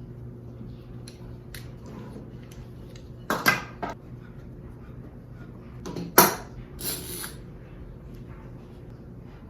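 Light taps and clatter of wooden boards being handled and set on a workbench during a glue-up, with two sharper clacks about three and a half and six seconds in.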